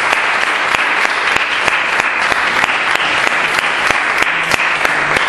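An audience applauding steadily, with loud individual hand claps standing out from the general clapping.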